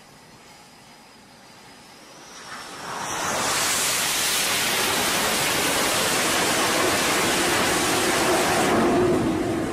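Jet fighter's engines running at full power during a catapult launch off an aircraft carrier's deck. Over a faint high whine, the noise swells about two and a half seconds in, holds loud and steady, and begins to fade near the end.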